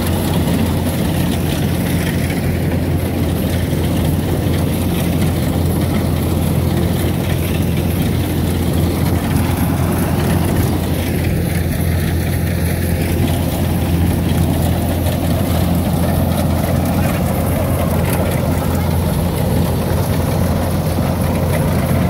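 Engine of a tracked rice combine harvester running steadily.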